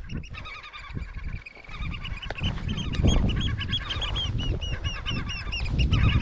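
Gulls calling over their nesting slope: a fast, dense series of short, repeated calls that thickens about two seconds in, typical of gulls mobbing someone walking among their nests. A low rumble of wind on the microphone runs under them.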